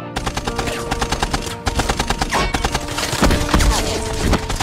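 Rapid automatic gunfire, shots following one another in long, dense bursts.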